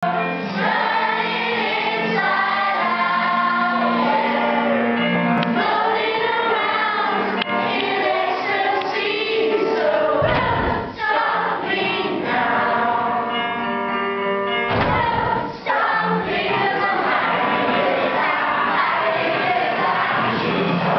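School house choir of pupils singing together, the sung phrases running on with two short breaks, one about halfway through and one a few seconds later.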